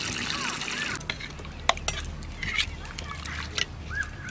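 Fish sauce trickling from a bottle into a pot of chicken soup for about the first second, followed by a few light knocks of a ladle stirring in the pot.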